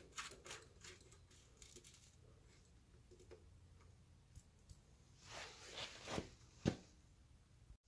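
Mostly quiet, with faint clicks and scrapes as the oil drain plug is screwed back into a Chevy 454 big block's oil pan by hand. A few louder rustles and a sharp click come about five to seven seconds in.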